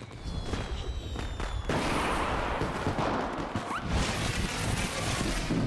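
Fireworks going off: a few scattered pops, then from about two seconds in a dense, continuous crackling of many small bursts, with a short rising whistle near the middle.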